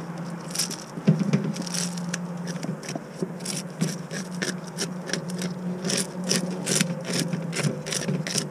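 A metal spoon scraping the scales off a redear sunfish in quick, irregular strokes, several a second, over a steady low hum.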